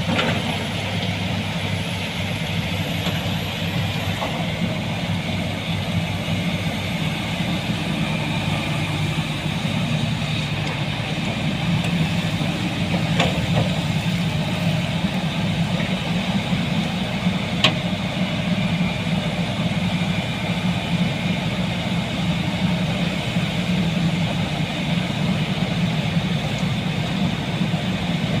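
Heavy diesel engine of earthmoving equipment running steadily, with two sharp metallic knocks partway through.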